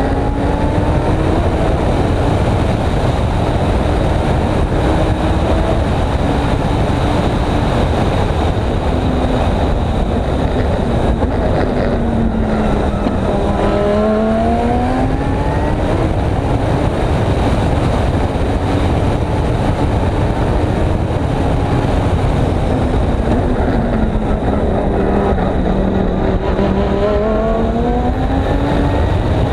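Audi R8 LMS GT3 race car's V10 engine running hard on a hot lap. Its note sags twice, about twelve and about twenty-four seconds in, where the car slows into corners, then climbs again as it accelerates out, all over a steady low rush of wind and road noise.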